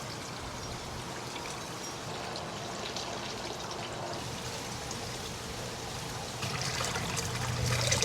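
Water running and trickling steadily, as from the filter return of outdoor fish tanks, with a faint low hum under it; the flow gets louder about six and a half seconds in.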